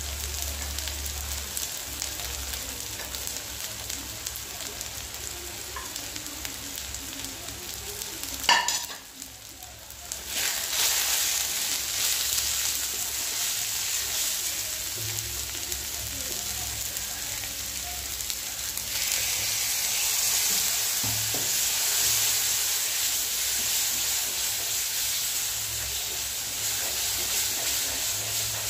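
Masala of onion paste, chopped tomato and ground spices frying in mustard oil in a kadai, sizzling steadily while a wooden spatula stirs and scrapes it; it is being fried down until the tomato melts. About eight seconds in there is a sharp knock, the sizzle drops away for a second or two and comes back louder, and it grows louder again about two-thirds of the way through.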